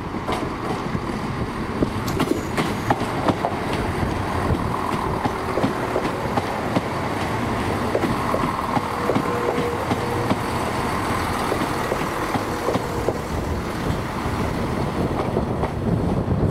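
ScotRail Class 170 Turbostar diesel multiple unit running slowly past at close range, its underfloor diesel engines rumbling steadily while the wheels click over rail joints and points.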